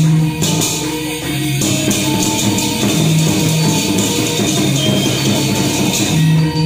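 Balinese gamelan playing for a topeng mask dance: sustained metallic pitched tones over dense jingling, clashing percussion, with a low tone swelling about every three seconds.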